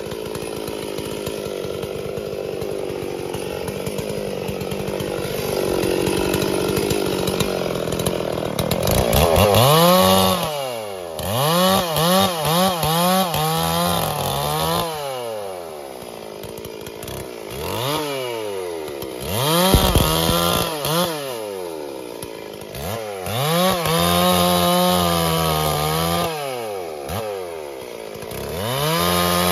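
Stihl MS 440 two-stroke chainsaw running steadily for the first several seconds, then revved up and let back down again and again, its pitch climbing, holding and falling in repeated surges.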